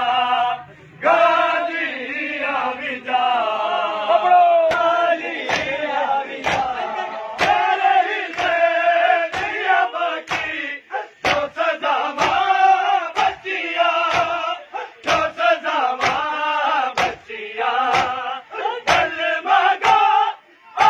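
A crowd of men chanting a noha in unison, with the sharp slaps of rhythmic chest-beating (matam) landing about once a second.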